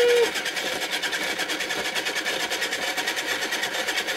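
Small electric pottery wheel running, its motor whirring with a fast, even rattle as it spins a paint-covered vinyl record.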